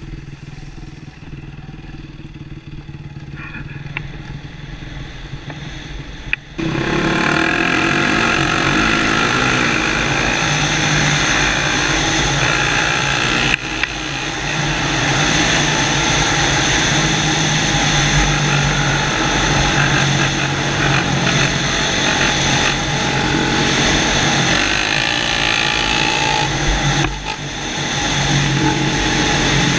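Honda CRF450R dirt bike's four-stroke single-cylinder engine heard from the rider's helmet: running low and fairly quiet at first, then suddenly much louder about six and a half seconds in as the rider opens the throttle, holding high revs with short dips about halfway and near the end.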